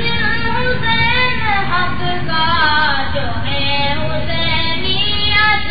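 A high solo voice singing an Urdu naat in long, ornamented melodic lines over a steady low background hum.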